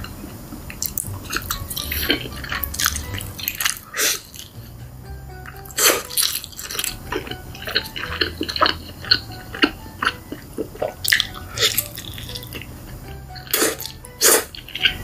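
Close-miked wet eating sounds: many short smacks and squelches from chewing sticky, cheesy food, over soft background music.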